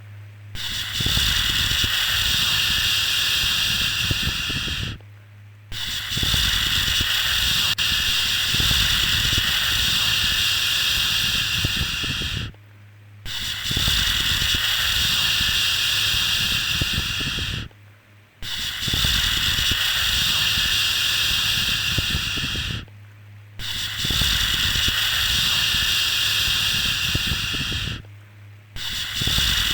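Long drawn-out 'shhh' shushing, repeated over and over. Each shush lasts about four to seven seconds, with a pause of under a second between them. It is the kind of shushing used to calm a baby to sleep.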